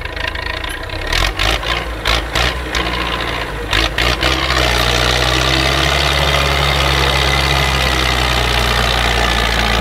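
Belarus 825 tractor's diesel engine pulling hard under heavy load, hauling a loaded trailer up a steep ditch bank. A run of sharp knocks and clatter comes first; from about four and a half seconds in, the engine settles into a steady, loud, labouring drone.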